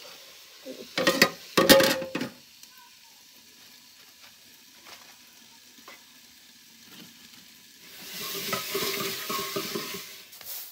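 Metal spoon scraping and clanking against a metal cooking pot, loudest in a few strokes about a second in. Near the end a sizzle of frying rises for about two seconds.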